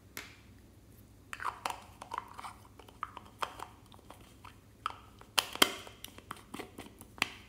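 Small apple-shaped plastic cosmetic jar being handled and its lid fitted and twisted shut: a run of irregular sharp plastic clicks and scrapes, loudest about five and a half seconds in.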